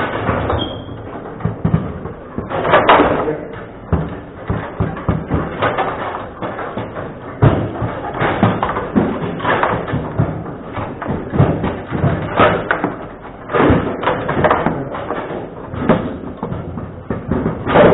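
Table football in play: the ball knocking irregularly against the players and table walls, with several louder, sharper strikes scattered through.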